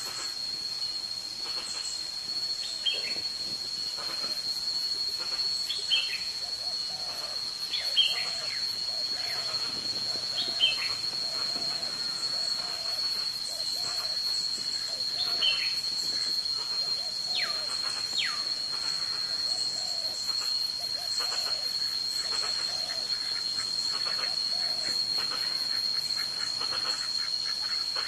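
Marsh ambience: a steady high-pitched insect drone, with bird whistles falling in pitch every few seconds and short low calls repeating about once a second.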